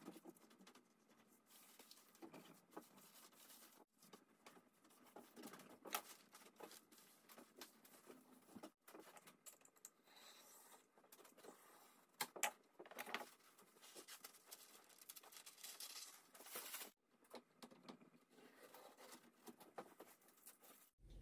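Faint rustling and crackling of thin bamboo paper being handled and pressed onto a wooden window frame, with a utility knife slicing through the paper to trim it along the frame's edge. Scattered soft ticks and a few sharper clicks run throughout.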